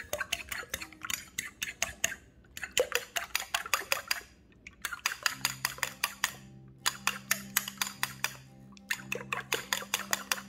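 A metal fork beating eggs in a bowl: a quick run of clinks against the bowl's side, several a second, broken by two short pauses. Soft background music comes in about halfway.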